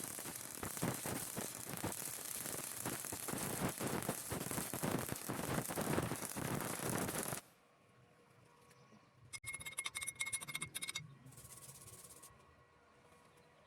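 Electric arc welding: the arc crackles and sizzles steadily with dense rapid pops, then stops abruptly about seven seconds in. A short rattling burst follows a couple of seconds later.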